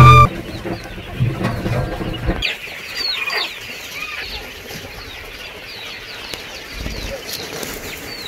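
A pen full of young quail chirping: many short, high peeps from different birds, several curling or dropping in pitch. Music cuts off at the very start.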